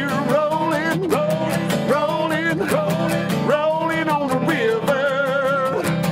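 A man singing, holding long wavering notes, while strumming an acoustic guitar in a steady rhythm.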